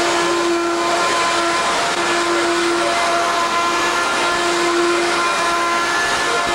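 Vacuum cleaner running: a steady motor whine over a rush of air, its pitch wavering briefly a few times.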